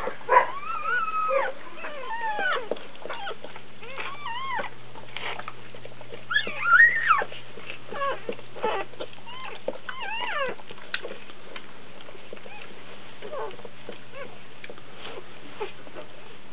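Newborn Doberman puppy crying in short, high, wavering squeaks, many in a row, loudest about six to seven seconds in, then thinning to a few faint cries after about eleven seconds.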